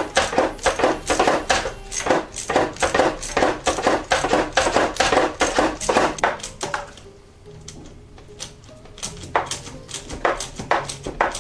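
Background music with a steady beat; the beat thins out for a couple of seconds past the middle, leaving the low notes.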